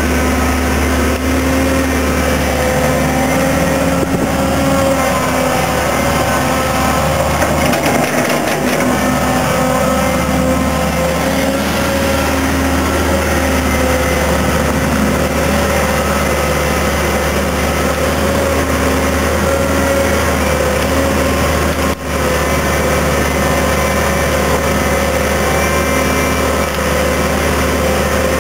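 Fiat Hitachi EX165 tracked excavator's diesel engine running steadily under load while the arm and bucket dig silt out of a drainage ditch. The sound dips for a moment once, about two-thirds of the way through.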